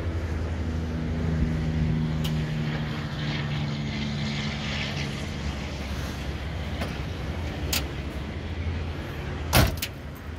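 Steady low engine rumble, with a 1970 Buick GS455's door swung shut with one solid thump near the end.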